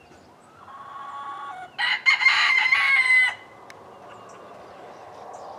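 A rooster crowing once: a long cock-a-doodle-doo that starts softly, turns loud about two seconds in and stops sharply a little past three seconds.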